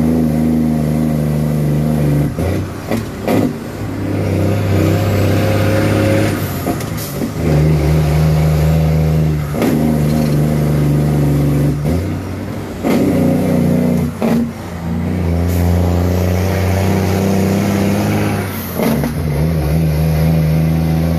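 Truck engine heard from inside the cab while driving, its pitch stepping up and down every few seconds as it pulls through the gears. Several brief clunks come in between.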